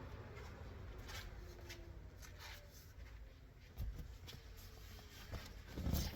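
Quiet car cabin: a faint steady low hum with a few light clicks and soft rustles of handling, one slightly louder click near the end.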